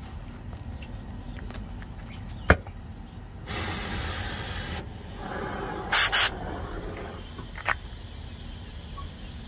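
Oxy-acetylene cutting torch being lit and run: a sharp click about two and a half seconds in, a rush of gas hiss a second later, then two loud sharp pops close together about six seconds in, over a low steady hiss.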